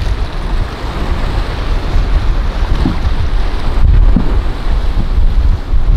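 Wind buffeting the microphone in heavy gusts over the rushing wash of surf at a rough inlet.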